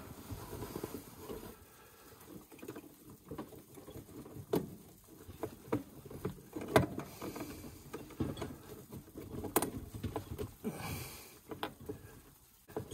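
Rustling with scattered light clicks and knocks, a few louder about four and a half, seven and nine and a half seconds in: hands handling parts in the engine bay of an old car with the engine off.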